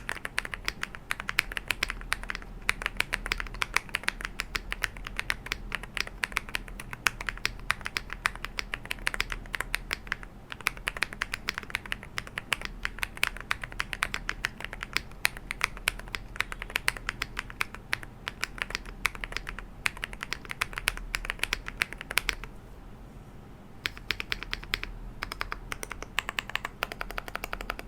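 Fast typing on a custom Monka 6087 mechanical keyboard with Dareu Snow linear switches, an FR4 plate, Cherry-profile doubleshot ABS keycaps and tape-mod and foam dampening: a dense run of keystroke clacks. The typing stops for about a second and a half near the end, then picks up again.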